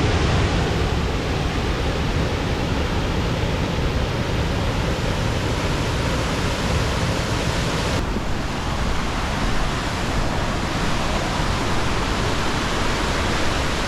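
Steady rushing roar of a waterfall in spate after heavy rain, unbroken water noise with a slight shift in its tone about eight seconds in.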